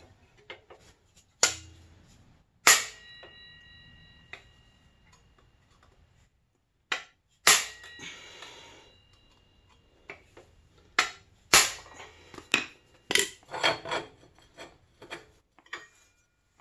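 Hammer blows and clanks on the metal of a three-wheeler's swingarm and skid plate: about a dozen sharp strikes spread unevenly, the loudest nearly three seconds in, with a quicker run of taps from about eleven to fifteen seconds. A couple of the strikes leave a short metallic ring.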